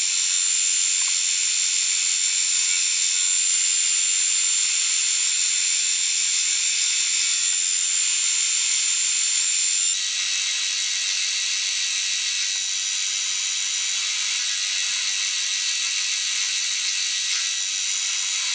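Grizzly G4003G metal lathe turning a steel bolt, the cutting tool taking a cut as the chuck spins: a steady, high-pitched hiss and whine. The tone shifts slightly about ten seconds in.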